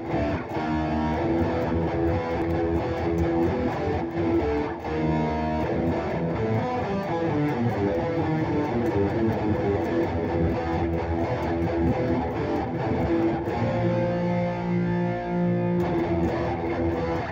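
Guitar music playing steadily, with plucked and strummed guitar notes and chords.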